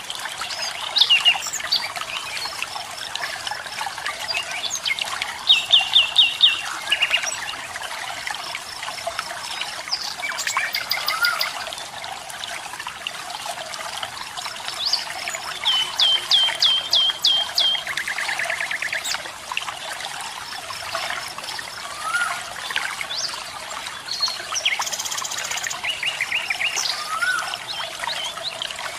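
Steady rush of flowing water from a waterfall or stream, with several birds calling over it: quick runs of repeated high notes a few times, and short rising chirps every several seconds.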